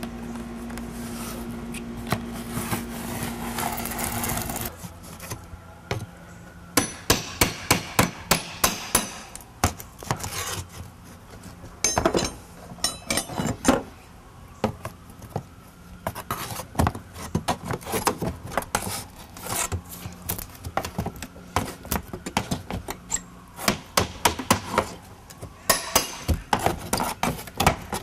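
Hammer strikes on wooden lap siding, in quick runs of several sharp taps with pauses between, as the boards are worked loose. A steady low hum sounds under the first few seconds and stops about four and a half seconds in.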